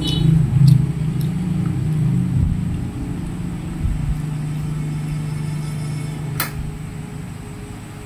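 A steady low mechanical hum or rumble, fading a little toward the end, with one sharp click about six and a half seconds in.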